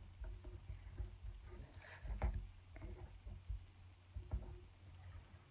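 Felt-tip marker writing on a paper pad: a string of short, uneven scratching strokes and light ticks as letters are written.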